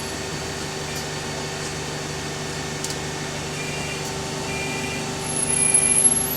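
Bus heard from on board, its engine and Voith gearbox running with a steady hum. From about halfway, a short electronic beep repeats roughly once a second.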